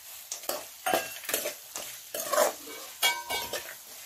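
Steel spoon stirring and scraping potato, vegetables and fried peanuts around a kadhai while they fry in oil, in irregular scraping strokes. A short metallic ringing tone sounds about three seconds in.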